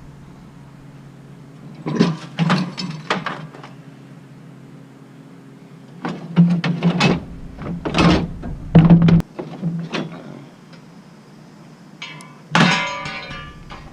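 Pieces of scrap metal clanking and thudding as they are handled and dropped, in irregular clusters of impacts that ring briefly, with a longer ringing clang near the end, over a steady low hum.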